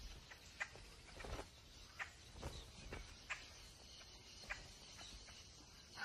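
Faint outdoor ambience with a few soft, scattered ticks.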